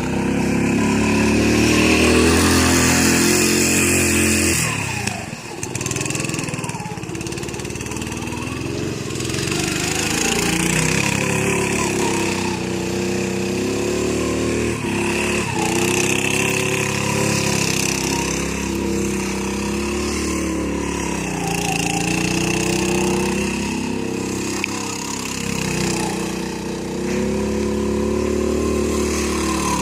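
Off-road go-kart engine running hard, its revs rising and falling again and again as the kart is driven and slid around. The revs drop briefly about five seconds in, then climb again.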